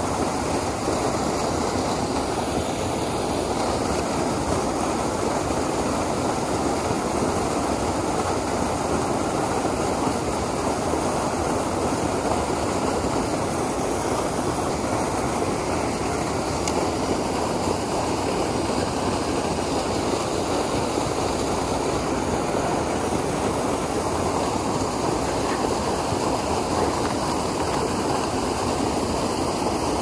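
Steady rushing of a small waterfall pouring over a concrete check dam into a shallow plunge pool.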